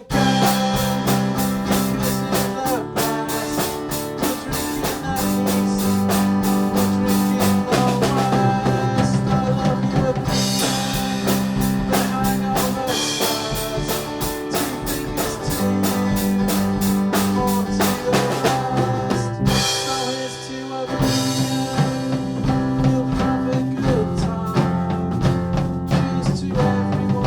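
A band playing a passage with no words: drum kit keeping a steady beat under guitar and sustained bass notes. The drums thin out briefly about twenty seconds in.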